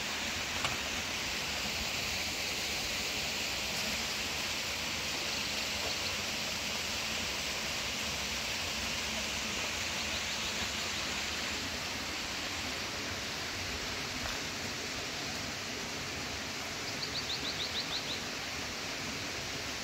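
Steady rushing outdoor background noise, with a brief quick run of high ticks near the end.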